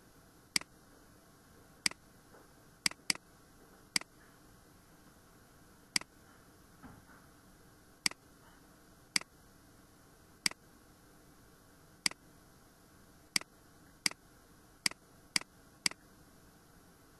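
Computer mouse clicks: about fifteen sharp single clicks at uneven intervals, a few coming in quick pairs, over a faint steady hiss.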